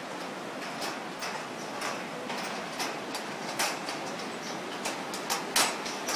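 Irregular footsteps and knocks on a suspension footbridge's deck, the loudest about five and a half seconds in, over the steady rush of the river below.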